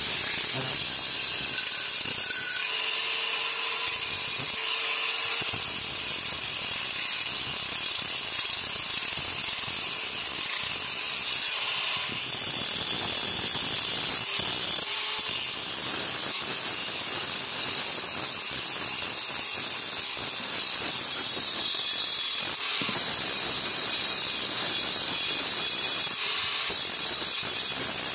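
Handheld electric angle grinder grinding a steel cleaver blank cut from an old leaf spring: a steady, high grinding noise of the disc on the steel, running without a break.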